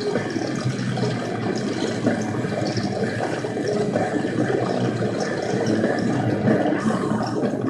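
Wind rushing over the microphone while riding a 2002 Honda CB750 motorcycle, with its inline-four engine running beneath the wind noise.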